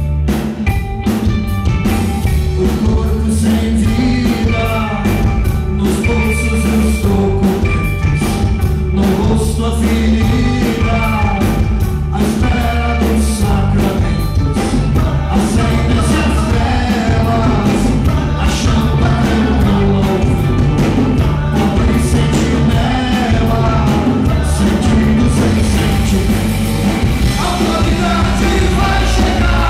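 Live rock band playing: a man singing over electric guitar, electric bass and a drum kit keeping a steady beat.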